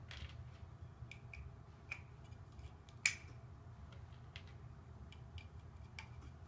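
Hard plastic clicks of Lego Technic 3M friction pins being pushed into Technic bricks and the pieces being handled. There are several small clicks, and one sharp snap about three seconds in is the loudest.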